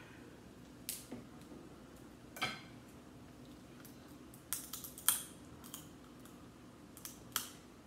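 Snow crab legs being cracked open by hand and with a hand tool: scattered sharp clicks and snaps of shell, the loudest about five seconds in.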